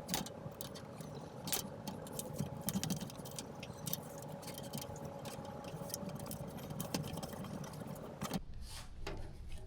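Scattered light clicks and scrapes of hands handling and working on a part, over a steady faint background hum; the hum cuts out abruptly near the end.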